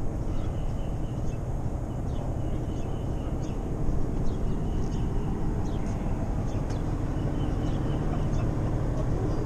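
Steady low engine rumble, from the moored charter boat's engine running at idle, with birds chirping in short repeated calls over it.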